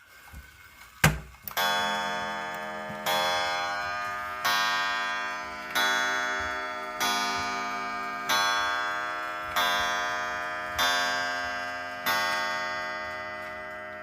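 Centurion 35-day spring-driven wall clock striking the hour: a click about a second in, then nine evenly spaced ringing strikes about 1.3 s apart, each fading before the next. The nine blows count out nine o'clock.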